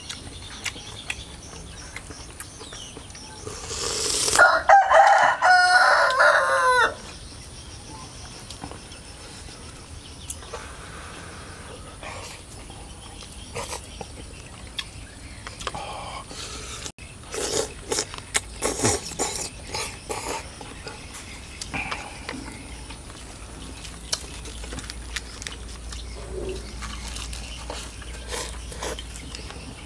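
A rooster crows once, a single drawn-out call lasting about two and a half seconds, a few seconds in; it is the loudest sound. Later comes a spell of short, sharp clicks.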